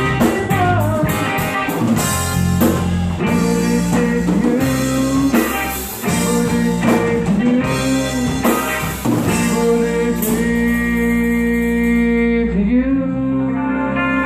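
Live blues-rock band playing, with electric guitar carrying long held notes that bend in pitch over bass and drums. Near the end the cymbals drop out while the guitar note rings on.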